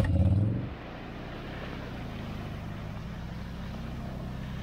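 ATV engine running loud for under a second, then dropping off to a quieter steady run.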